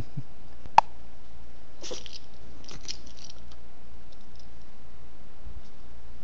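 A puppy chewing and mouthing, with a few short rustling scrapes. One sharp click comes about a second in.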